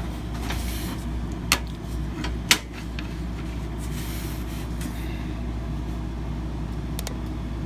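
A few sharp clicks and light knocks of a CPU cooler's bracket and back plate being handled and lined up on the motherboard, the loudest about two and a half seconds in. A steady low hum runs underneath.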